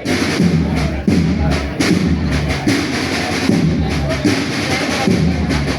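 Music with a steady drum beat and a heavy bass line.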